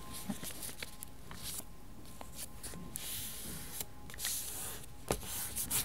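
Hands handling and rubbing sheets of patterned paper on a table: soft rustling and brushing strokes with small ticks, and a sharper tap about five seconds in.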